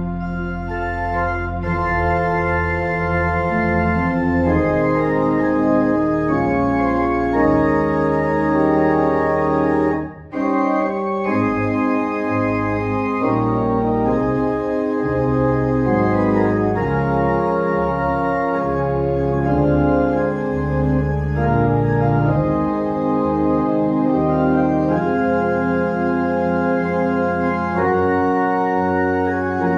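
Church pipe organ playing slow, sustained chords, with a short break between phrases a little over ten seconds in.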